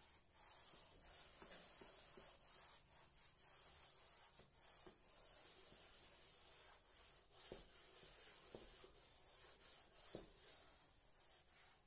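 A chalkboard being wiped with a board duster: faint, repeated rubbing strokes across the slate. A few sharper taps come in the second half.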